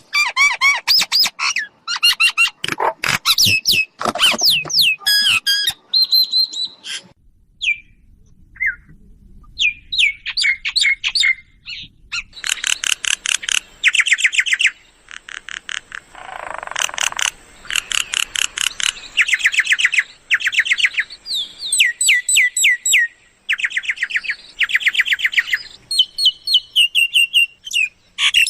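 Mynas calling: a busy mix of whistles, rapid rattling note series and chatter, with a short lull about seven to nine seconds in.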